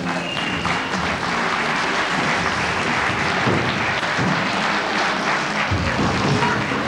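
Audience applauding, many hands clapping, with music playing underneath.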